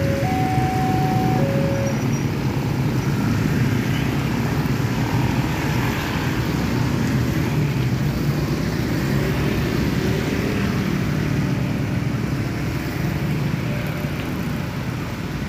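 A railway level-crossing warning alarm sounds two alternating steady electronic tones and stops about two seconds in, over the steady engine noise of many motorcycles and cars moving off across the tracks.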